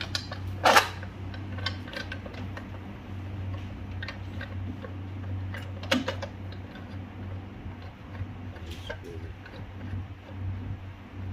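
Scattered clicks and knocks of grinder parts being handled and fitted back together, the sharpest about a second in and another about six seconds in, over a steady low hum.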